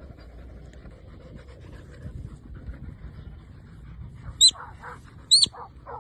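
Low rumbling outdoor noise, then two short, sharp whistle blasts near the end: a shepherd's whistle giving the working sheepdog its "steady" command.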